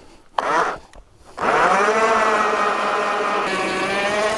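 ION battery-electric ice auger drilling a hole in the ice: a brief whir of the motor, then from about a second and a half in it runs steadily, its pitch sagging slightly about halfway.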